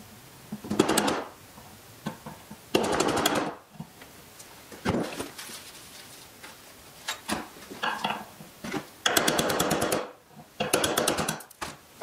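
Hammer tapping a punch to drive the front sight out of its groove in a Sig P320 slide, in several short bursts of quick strikes, with single knocks of tools being handled between.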